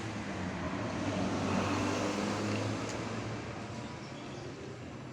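A motor vehicle passing on the road, its engine hum and tyre noise swelling to a peak about two seconds in, then fading.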